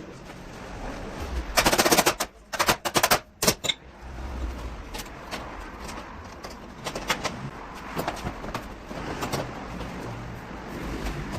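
Rapid clattering knocks from tool work on a car body: a dense rattle about two seconds in, then a few separate knocks and scattered ticks.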